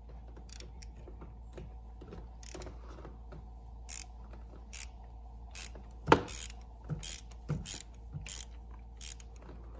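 Hand ratchet clicking in short, irregular strokes, with metal taps from a 13 mm socket on a long extension being worked onto a tight intake horn bolt. One sharper metal knock comes a little past halfway.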